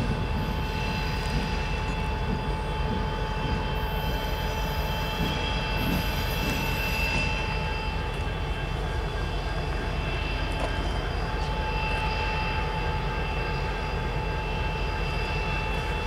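Diesel-electric freight locomotives running in a rail yard, one rolling slowly: a steady low engine rumble with a high, even whine over it.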